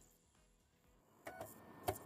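Near silence, then two short pitched percussive hits of intro music in the second half, the second one louder.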